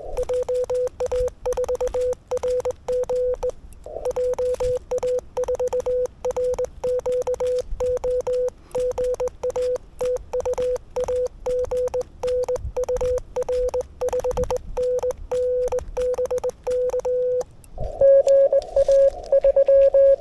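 Morse code sent by hand on a straight key: the radio's CW sidetone, a steady beep keyed in dots and dashes, with the key's contact clicks on each stroke and a short break about three and a half seconds in. Near the end the answering station's Morse comes in at a slightly higher pitch over receiver hiss.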